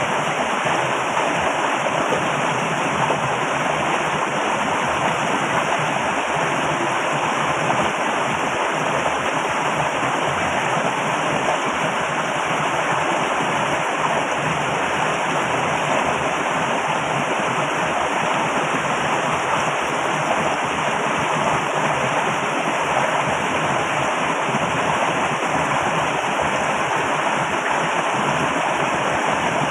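Loud, steady rush of flowing water.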